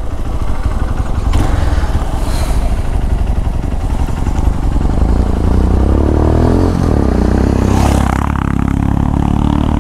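Motorcycle engine running under load on a rough off-road trail; its pitch climbs as it revs up, drops sharply at a gear change about seven seconds in, then holds steady.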